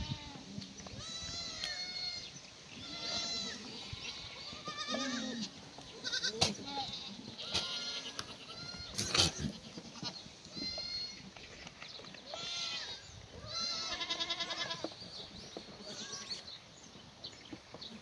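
Black goats bleating again and again, several animals calling one after another and overlapping, some calls quavering. Two sharp knocks stand out, about six and nine seconds in.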